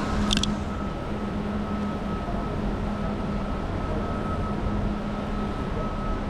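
Steady urban background noise with a constant mechanical hum, and a brief high clicking about half a second in.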